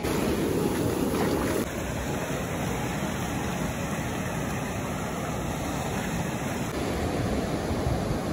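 Ocean surf breaking and washing around shoreline rocks: a steady rush of waves, louder for the first second and a half, then changing abruptly at hard cuts about one and a half seconds in and again near the end.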